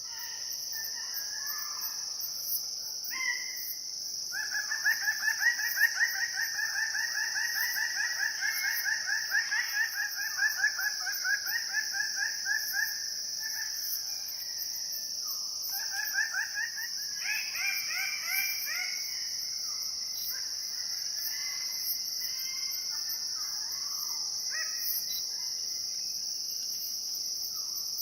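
Red bird of paradise calling: a long, rapid run of loud repeated notes starting about four seconds in, then a shorter run a few seconds later. A steady high-pitched insect drone runs underneath.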